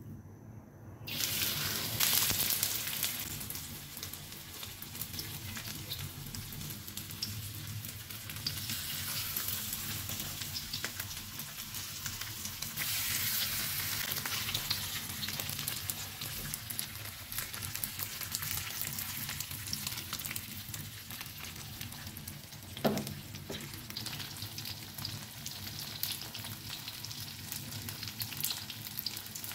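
Flour- and cornstarch-coated chicken thighs hitting hot oil in a pan, then frying with a steady sizzle. The sizzle starts suddenly about a second in and is loudest just after. There is one short knock about three-quarters of the way through.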